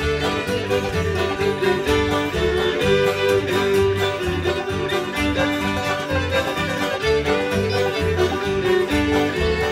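String band playing an instrumental dance tune: fiddles, banjo and guitar with a steady driving beat.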